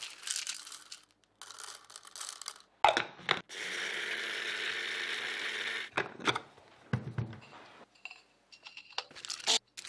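Small electric blade coffee grinder running for about two and a half seconds, grinding coffee beans, started with a sharp clack of the lid being pressed down. Before it, beans rattle as they are loaded into it; after it, a few knocks and a thud as the grounds are tipped into a steel pot.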